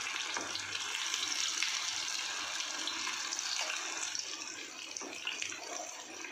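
Raw, batter-coated chicken pieces frying in hot oil in a frying pan: a steady sizzle with faint small crackles, from the first side frying.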